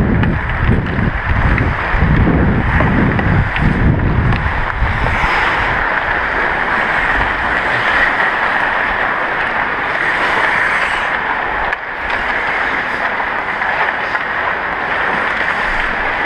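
Wind buffeting the microphone of a body-worn action camera as the skater moves at speed, over the hiss of skates on ice. After about five seconds the buffeting drops away, leaving a steady hiss of skates on the rink ice.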